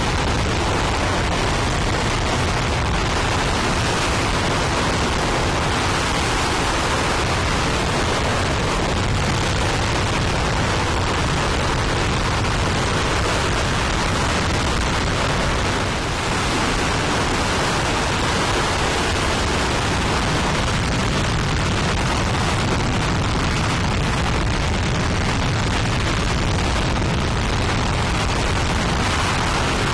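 RS-25 liquid-hydrogen/liquid-oxygen rocket engine firing steadily on a test stand: a loud, even rushing noise spread across all pitches, with no break.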